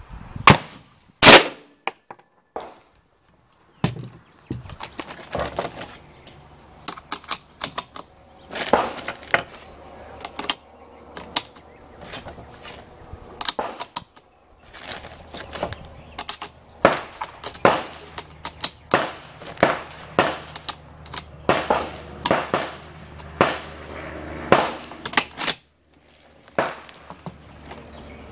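Semi-automatic SKS rifle (7.62×39 mm) firing: one very loud shot about a second in, then many quieter rifle shots through the rest, some single and some in quick strings of two or three.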